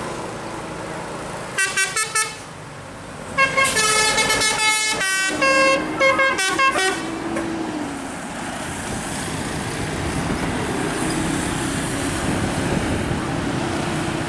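Tour bus 'telolet' basuri musical horn: three short toots, then a quick run of notes at changing pitches lasting about three seconds. After that, bus engine and road noise as the bus passes.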